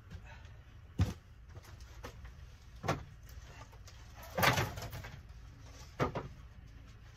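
Split red oak firewood being stacked on a slatted wooden floor: four hollow wooden knocks as pieces are set down, the loudest about four and a half seconds in. A steady low rumble of wind lies underneath.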